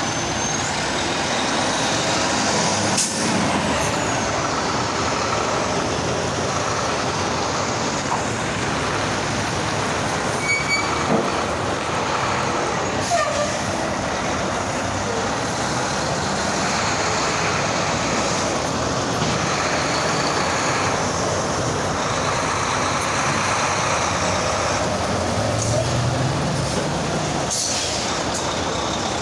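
Heavy trucks of a convoy driving past, diesel engines and tyres making a steady road noise, with a few short sharp sounds along the way. Near the end one engine rises in pitch as it pulls away.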